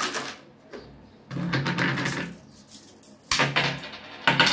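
Metal coins clinking and rattling in several short bursts, with a high metallic ring.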